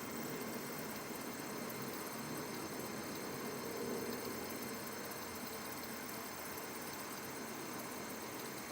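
CraftBot 3D printer feeding filament: its extruder stepper motor turning the drive gear with a steady hum, slightly louder about four seconds in.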